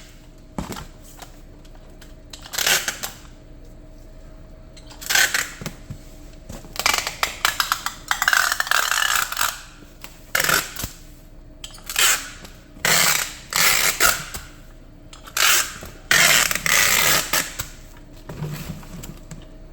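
Packing tape being pulled off the roll in repeated short rasping strips as a cardboard box is taped shut.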